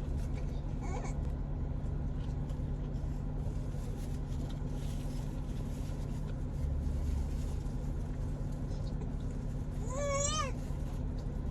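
Steady low hum of a car idling, heard from inside the cabin. About ten seconds in, a baby lets out one short, wavering cry as it starts to fuss.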